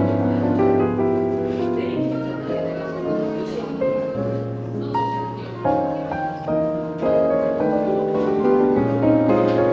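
Smooth piano jazz playing as background music, with sustained chords that change every second or so.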